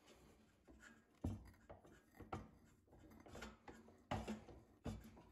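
Faint, scattered scraping and creaking as a tap cuts threads in an aluminum block, the drill press spindle turned slowly by hand through its belts while pressure is kept on the quill.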